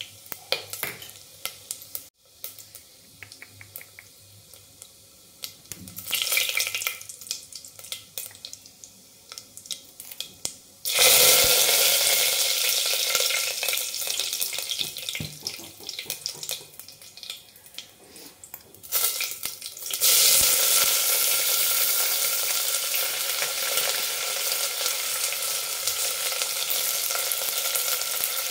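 Whole dry spices crackling softly in hot ghee in a stainless-steel pressure cooker, with scattered pops. About a third of the way in, a loud, steady sizzle starts suddenly as more ingredients are dropped into the hot fat. It breaks off briefly, then starts loud again as chopped onion and garlic fry.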